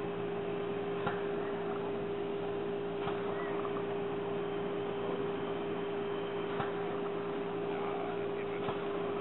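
Narrow-gauge steam locomotive standing with its lamps lit: a steady hum over a soft hiss of steam, with a few faint clicks.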